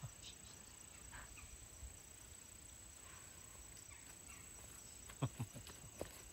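Faint outdoor background, with a few soft knocks about five and six seconds in.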